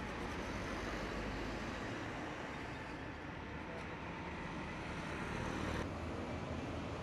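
Steady hum of road traffic, with no single vehicle or horn standing out. The background changes abruptly a little before six seconds in.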